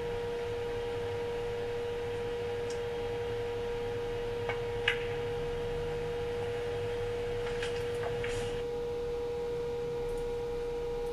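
A steady single-pitched hum sits under everything. About four and a half seconds in, the cue tip strikes the cue ball and a sharp click of snooker balls colliding follows half a second later, with a few fainter clicks of balls touching near the end.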